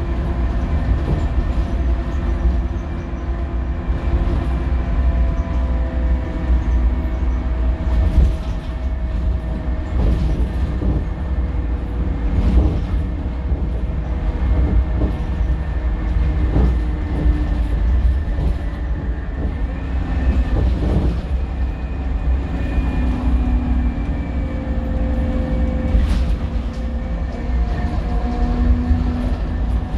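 Scania K230UB single-decker bus under way: deep, steady diesel rumble with several whining tones that slowly rise and fall, from its loud turbo and the differential. Brief knocks and rattles now and then.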